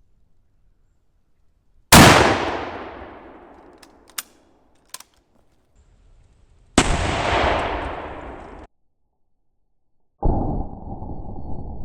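Mosin-Nagant 7.62x54R rifle shot about two seconds in, ringing out in a long echo, followed by two small clicks. A second loud blast about seven seconds in cuts off abruptly, and a duller, muffled noise starts near the end.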